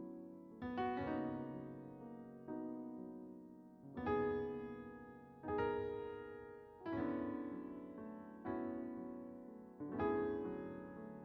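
Slow, soft background piano music: chords struck about every one and a half seconds, each ringing out and fading before the next.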